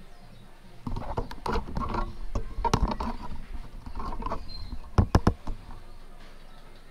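Handling and shuffling noises around a parked motorcycle, with scattered knocks and a pair of sharp clicks about five seconds in.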